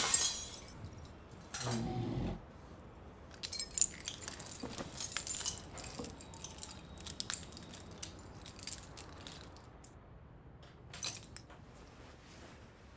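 Keys jangling and clinking in bursts as they are handled, with a short low dull sound about two seconds in.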